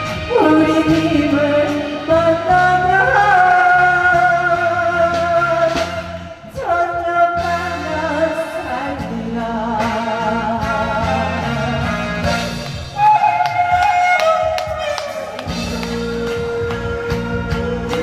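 A woman's amplified voice over a backing track with a steady beat, holding long, wavering notes with heavy vibrato and sliding sharply down in pitch twice, in a tearful pumba performance.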